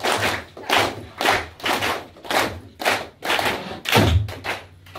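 Flamenco palmas: several people clapping hands in rhythm, sharp claps coming about two to three a second, with a heavier thud about four seconds in.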